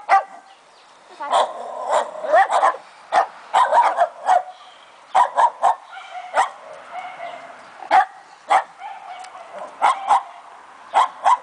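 Fox terriers barking and yipping in short, high-pitched bursts, often several quick barks in a row, over and over.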